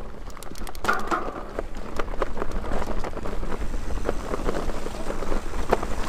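Mountain bike ridden fast down a dirt singletrack: wind on the microphone makes a steady low rumble, over which the bike gives many quick rattles and clicks as it runs over bumps.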